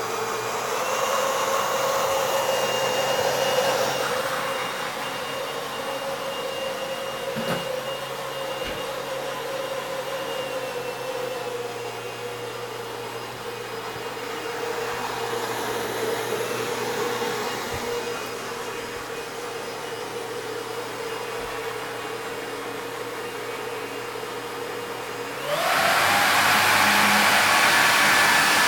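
Two 2204 brushless motors of a 3D-printed RC hovercraft running its lift and propulsion fans: a steady whine. Near the end it steps up to a louder, higher whine as the motors speed up.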